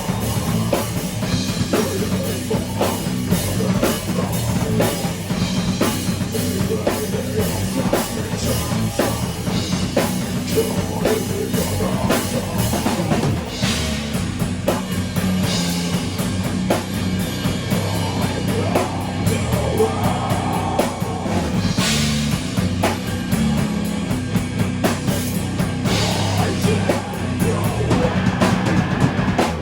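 Rock band playing: drum kit with steady beats over guitar, the whole band loud and continuous.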